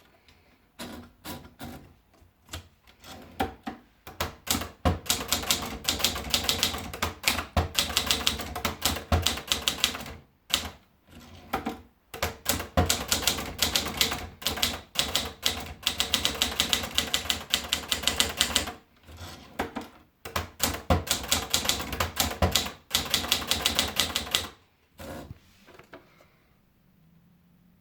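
Adler Tippa 1 portable manual typewriter being typed on: fast runs of key strikes in several long bursts with brief pauses between them. Near the end it slows to a few scattered clicks and stops.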